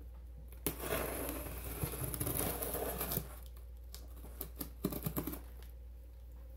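Scissors blade drawn along the packing tape of a cardboard box, slitting it open with a rough scraping rasp for about two and a half seconds, then a handful of short clicks and taps.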